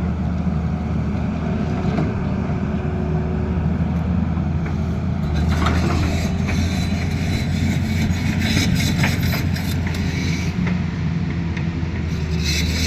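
Excavator's heavy diesel engine running steadily with a deep hum, with a few short clicks about six seconds in.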